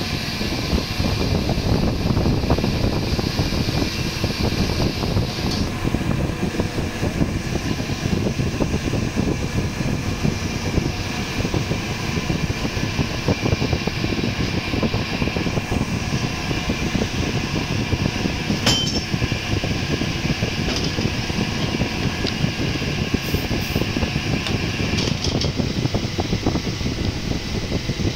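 Steady drone of running injection moulding machinery: a dense low rumble with a few steady hum tones above it. One sharp click about two-thirds of the way through.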